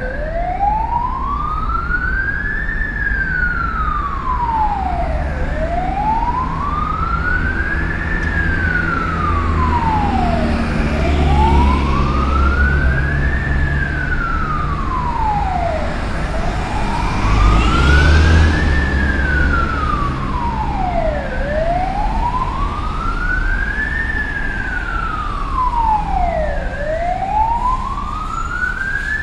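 Ambulance siren in a slow wail, its pitch rising and falling in long even sweeps of about five seconds each, repeating steadily. Under it, a low engine and traffic rumble swells about halfway through.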